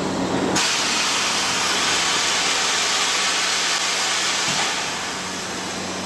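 Sawmill log-haul chain conveyor running with a steady low machine hum, under a loud, steady hiss that starts suddenly about half a second in and eases off near the end.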